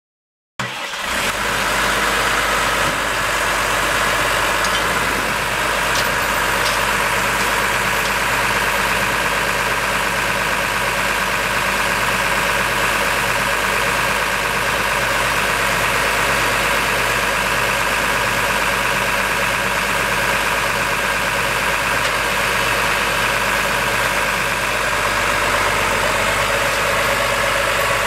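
Case IH Maxxum 125's 6.7 L six-cylinder turbo diesel engine running steadily at idle.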